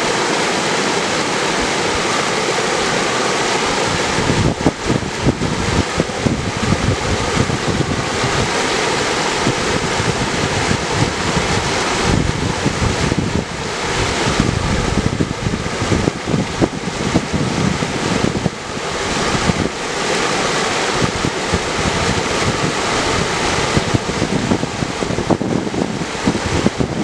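Mountain river rushing steadily over granite through a small white-water cascade. From about four seconds in, gusty wind buffets the microphone with low, uneven rumbles.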